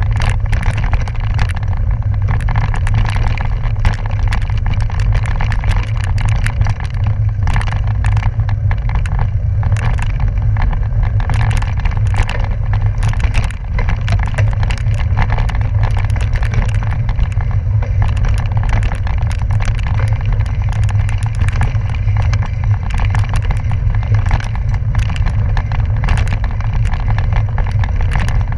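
Gravel bike riding fast over a rough dirt forest road: a steady low rumble of wind and tyre noise on the handlebar-mounted microphone, with frequent rattles and crunches from the tyres and bike over dirt and stones.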